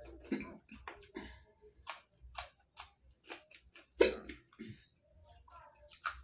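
Raw green chillies being chewed with the mouth close to the microphone: a series of short, crisp crunches. About four seconds in, a louder rustle as a hand picks more chillies from the plate.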